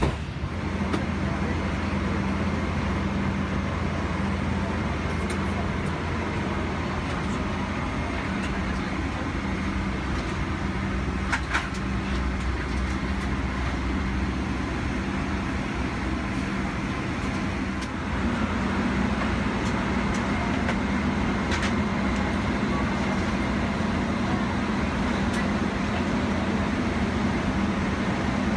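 Steady air-conditioning hum and low drone in the cabin of a parked Boeing 777-300ER, with a few faint clicks. It gets a little louder about two-thirds of the way through.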